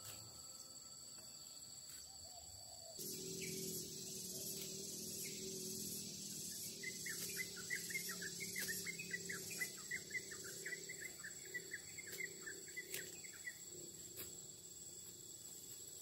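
Garden ambience: a steady, pulsing insect chorus sets in a few seconds in. Through the middle of it a bird sings a quick run of short falling chirps.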